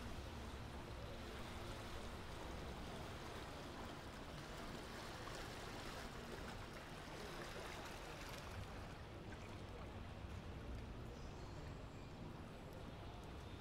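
Canal tour boat motoring past close by: a low engine hum and the wash of water churned up by the boat, over steady city background noise.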